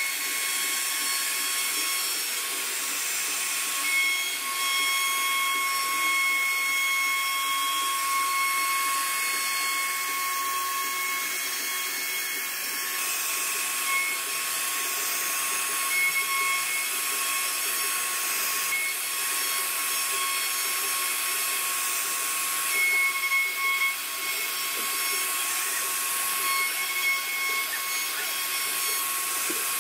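CNC router spindle running at speed while its profiling bit carves a relief pattern into a wood panel. It makes a steady whine with overtones over the hiss of the cut.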